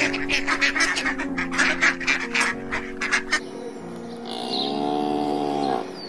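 Mallard ducks quacking in a rapid series for about three and a half seconds, then a cow mooing once in one long call near the end, over background music.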